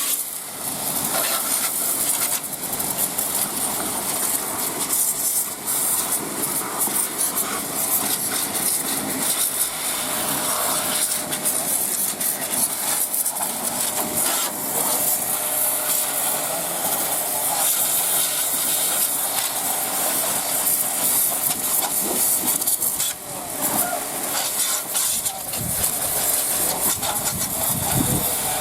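Pressure-washer water jet spraying with a steady hiss.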